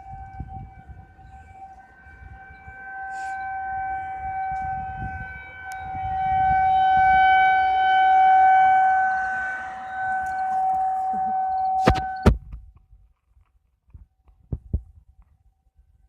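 A loud, steady horn- or siren-like tone held at one unchanging pitch with strong overtones. It swells louder toward the middle and cuts off abruptly about twelve seconds in, at two sharp clicks.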